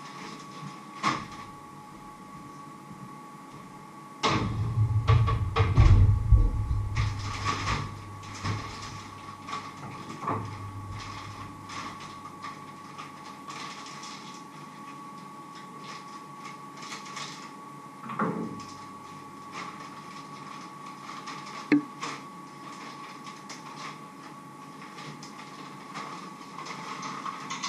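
Frozen mixed vegetables tipped from a plastic bag into a cooking pot: a few seconds of loud rustling and deep rumbling starting about four seconds in, then scattered knocks and clinks of kitchen handling. A faint steady high tone runs underneath.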